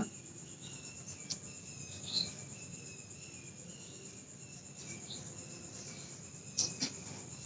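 Faint, steady chirping of insects such as crickets, with a few faint ticks.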